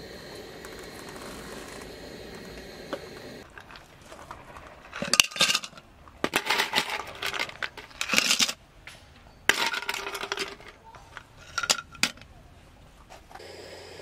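Ice cubes tipped from a small cup into two clear tumblers, clattering and clinking against the glass in several bursts. Before and after the clinking, a camping gas stove's burner hisses steadily under a moka pot.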